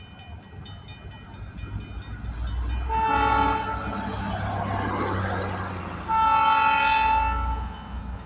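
South Kansas & Oklahoma Railroad diesel locomotive blowing its horn: a short blast about three seconds in and a longer, louder one about six seconds in, over the engine's rumble, which grows louder from a couple of seconds in.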